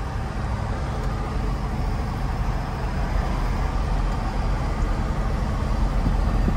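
Ford F-450 dually pickup being driven, heard from inside the cab: a steady low rumble of engine and road noise that grows a little louder toward the end.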